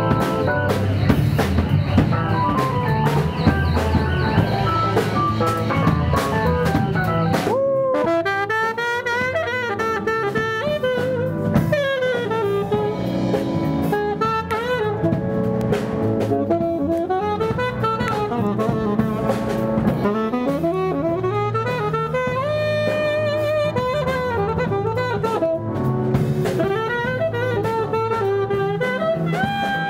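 Live jazz music from a subway street performer: a lead melody of bending, sliding notes over a drum beat, with the melody coming forward about seven seconds in.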